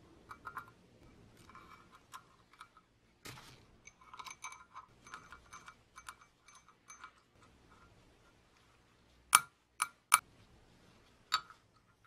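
Small steel parts of a 1930 car horn's mechanism being fitted by hand into its housing: light metallic clicks and clinks, with four sharper clicks in the last few seconds, three close together and one a second later.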